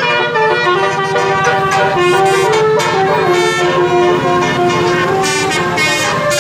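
Basuri, a tour bus's musical multi-tone horn of the telolet kind, playing a loud tune whose notes change in steps without a break.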